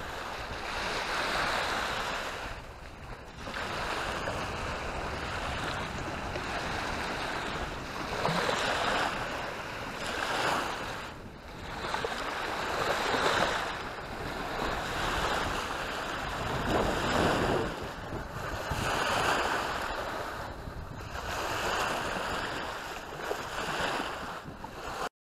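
Small waves washing up on a sandy beach, swelling and falling back every two to three seconds, with wind buffeting the microphone.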